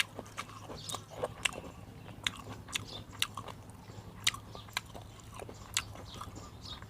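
A person chewing and biting food close to the microphone, with many sharp, irregular crunchy clicks.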